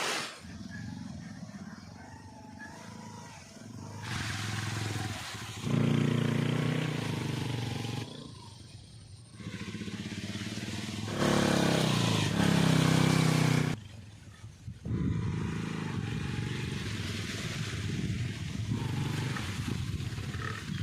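A motor running steadily, heard in several short stretches joined by abrupt cuts, its loudness jumping from one stretch to the next.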